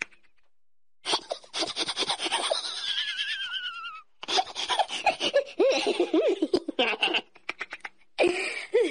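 High-pitched laughter in three stretches of rapid pulsing giggles, starting about a second in and broken by short pauses.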